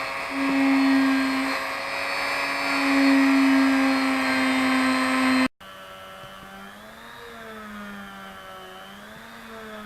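Small electric rotary tool running a felt polishing wheel with GOI paste, polishing the metal line guide eye of a baitcasting reel. Its steady whine cuts off suddenly about five and a half seconds in. After that a quieter, lower motor hum wavers up and down in pitch as the wheel is worked against the part.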